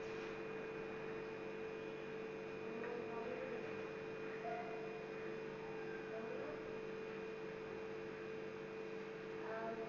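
Steady electrical hum: one constant mid-pitched drone with a fainter high whine above it, and a few faint short sounds about three to five seconds in.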